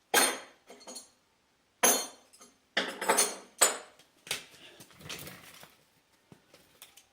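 Metal parts and tools clinking and clanking as they are handled on a workbench. There are about four sharp clanks in the first four seconds, then a quieter rattle.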